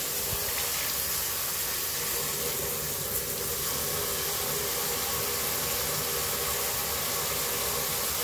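Handheld shower head spraying a steady hiss of water onto a potted rubber plant's leaves and soil in a bathtub.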